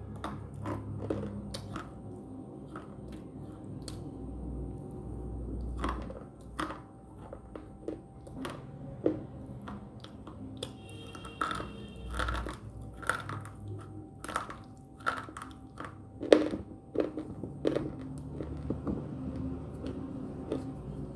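A person biting and chewing crunchy slate sticks: irregular sharp crunches and snaps, the loudest about three-quarters of the way through.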